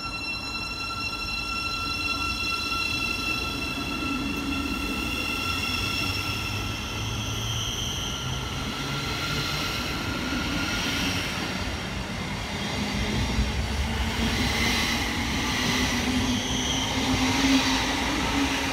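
Thameslink Class 700 electric multiple unit pulling away from the platform, giving a set of steady high whining tones that fade after about ten seconds. A lower hum strengthens near the end as the train gathers speed.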